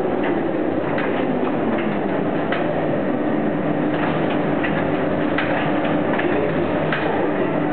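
Siebeck FRT-S MKII meat-tying machine running as it ties a roast, a steady mechanical whirr and hum with irregular light clicks.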